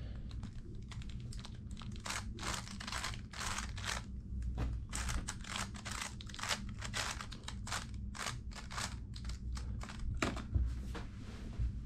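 A 3x3 speed cube turned quickly by hand, its layers snapping round in rapid runs of plastic clicks and rattles, with short pauses between runs. A steady low hum runs underneath.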